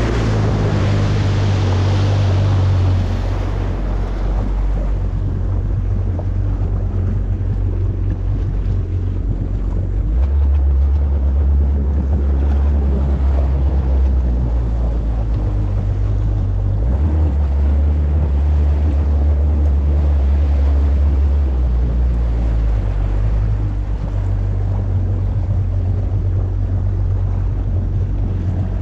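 A motor running steadily at low speed, its pitch stepping up and down a few times, with wind buffeting the microphone.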